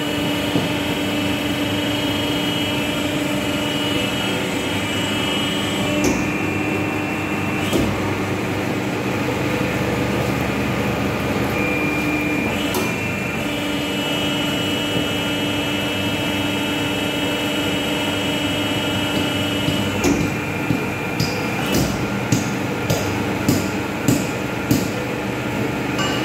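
Tube forming machine for car headrest frames running unloaded on a dry test: a steady motor hum and whine that drops out and comes back twice. Near the end comes a run of sharp mechanical clacks, about two a second.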